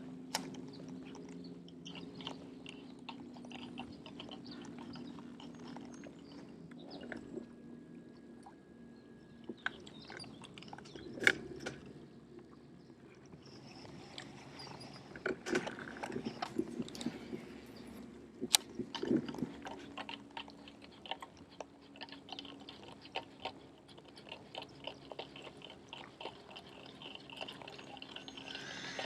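Quiet water splashing and lapping on a fishing boat, with scattered small clicks, two sharp knocks and a steady low hum.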